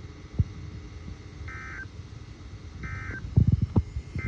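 Weather radio receiver sounding three short bursts of warbling digital data tones, evenly spaced about a second and a half apart: the EAS/SAME end-of-message code that closes the NOAA Weather Radio required weekly test. A few low thumps sound in between, the loudest shortly after the second burst.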